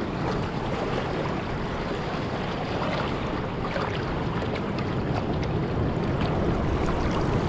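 Shallow sea water washing and swirling over rocks around a snapper held in the shallows, with small splashes from the fish and hands in the water. The wash grows louder near the end as a wave surges in.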